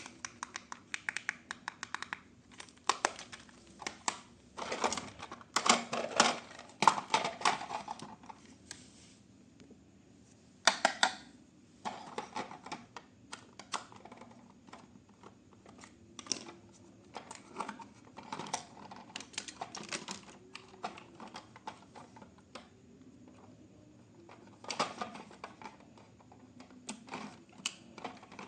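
Hands handling a toy and its packaging: irregular clicks and taps with short bursts of rustling, busiest about five to eight seconds in.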